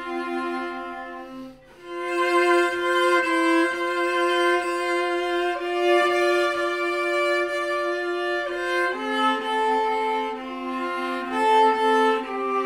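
Viola and cello duet playing a slow, sustained melody with long held bowed notes. The sound breaks briefly about a second and a half in before a new phrase begins.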